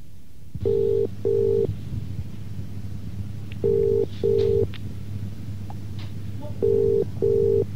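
British telephone ringing tone heard down the caller's line: three double rings, each a pair of short two-pitch beeps about three seconds apart, over a steady low hum on the line, as the call waits to be answered.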